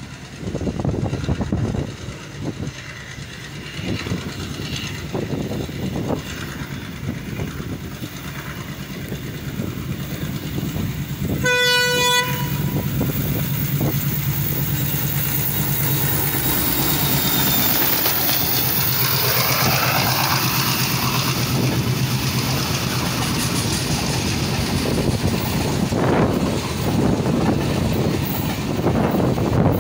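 WDM-3A diesel-electric locomotive, with its ALCO 16-cylinder engine, approaching at speed: one horn blast about a second long near the middle, then the engine's steady drone growing louder. Over the last half the passenger coaches run past with a rising rush of wheel and rail noise and the odd clack over rail joints.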